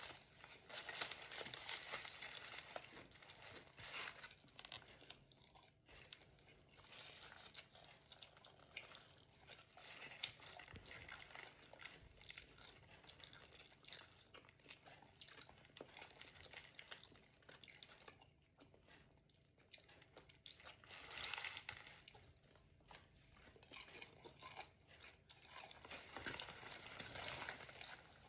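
Faint eating sounds: a burger's paper wrapper crinkling and food being chewed and crunched, in irregular bursts that are strongest near the start and again near the end.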